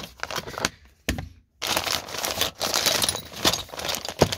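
Clear plastic bag crinkling and crackling as it is handled, with a dull knock about a second in.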